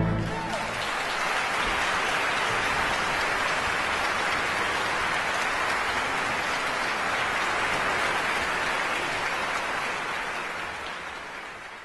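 Audience applauding steadily just after an orchestra's final chord cuts off; the applause fades out near the end.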